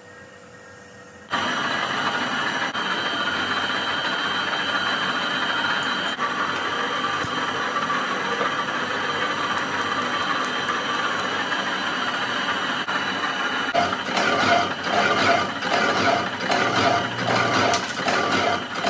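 A metalworking machine comes in suddenly about a second in and runs steadily with a high whine. About 14 seconds in it turns rough and uneven, a rapid pulsing rattle.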